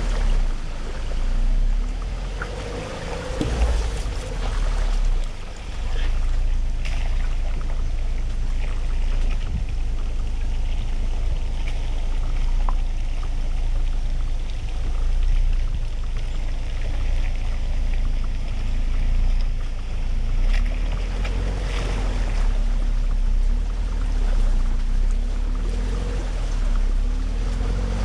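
Pickup truck engine running while driving off-road, its pitch rising and falling with the throttle over a heavy low rumble, with a few sharp knocks from the truck working over rough ground.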